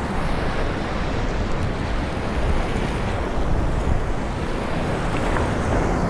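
Steady rush of waves washing against the shore mixed with wind buffeting the microphone.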